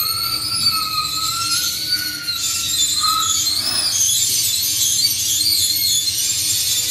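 Experimental noise music: shrill, wavering squealing tones that thicken into a dense screeching wash a couple of seconds in, like metal wheels squealing on rails.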